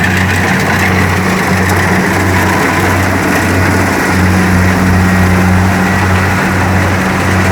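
Kubota DC-70 combine harvester's diesel engine and machinery running steadily with a loud, constant low hum.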